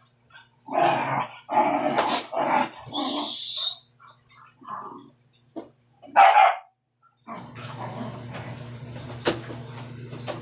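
Dog barking in a quick run of about four barks, then once more about six seconds in. A short high hiss follows the first barks, and a steady low hum sets in about seven seconds in.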